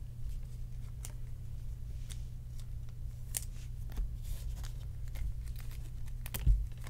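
Baseball trading cards being handled and sorted on a table: scattered soft clicks and slides of card stock, over a steady low hum. A louder thump comes about six and a half seconds in.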